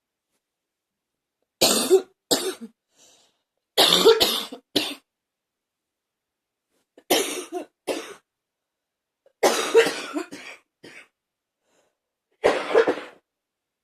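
A person coughing repeatedly, in short fits of one to three coughs every two to three seconds: a cough that is lingering on.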